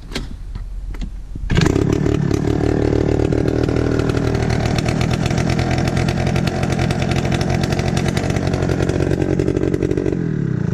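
Yamaha BWS 50 cc two-stroke scooter engine starting and running with no exhaust pipe fitted, a loud, steady, raw racket. It catches about a second and a half in and dies away near the end as it is switched off.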